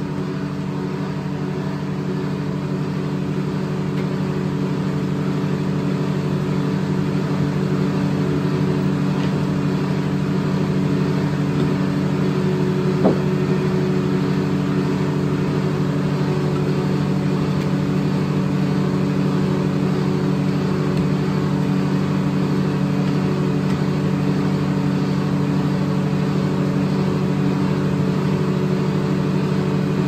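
Corley circle sawmill running at a steady, even speed, its drive engine humming, with one sharp knock about halfway through.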